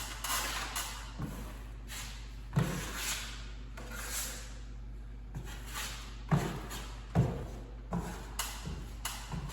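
Drywall knife scraping joint compound off a hawk and spreading it across drywall tape in repeated short strokes, with a few sharp knocks of the knife against the hawk or wall.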